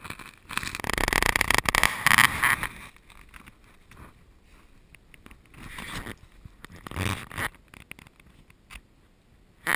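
Snow crunching and scraping close to the microphone as a dog moves and noses through it: a rasping stretch of about two seconds starting half a second in, then shorter, weaker rasps around six and seven seconds.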